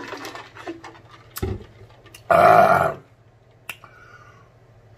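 A man swallows a drink from a large glass jar, then lets out one loud burp about two seconds in, lasting under a second.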